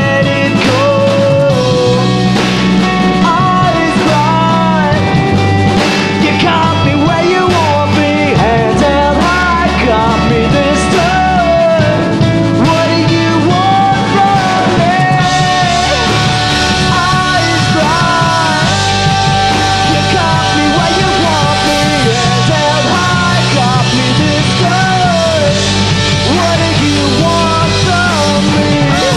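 Live rock band playing: electric guitar, bass guitar and drums, with a male lead voice singing. The sound grows fuller and brighter about halfway through.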